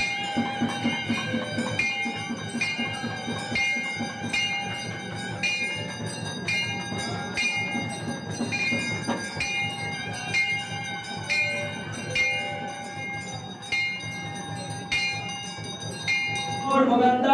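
Temple bell rung during the puja's lamp offering, struck in an even rhythm about once a second, each stroke left ringing.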